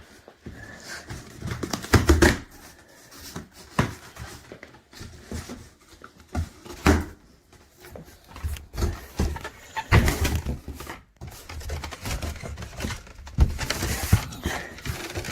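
Cardboard shipping box for a trailer hitch being opened and unpacked by hand: irregular rustling and crinkling of packing material, with several heavier knocks and thumps as the contents are handled.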